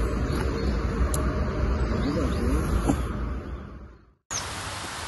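Wind rumbling and handling noise on a phone microphone outdoors, fading out about four seconds in. After a cut, a steady outdoor hiss with a short bird chirp.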